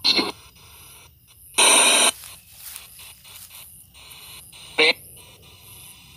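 Small portable radio speaker sweeping through stations as a ghost-hunting spirit box: steady static hiss with a fast, regular choppy pattern, broken by short bursts of sound. The loudest is a half-second burst of static about a second and a half in, with a brief snatch near the end.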